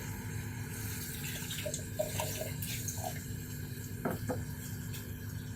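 Water being poured into a pan of masala gravy on the stove to thin it. Two light knocks come about four seconds in.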